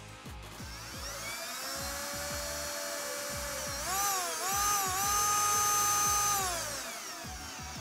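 Milwaukee cordless drill/driver driving a self-tapping screw into the third brake light mount: the motor whine rises about a second in, wavers twice around four seconds in as the screw takes load, holds steady, then winds down as the trigger is released.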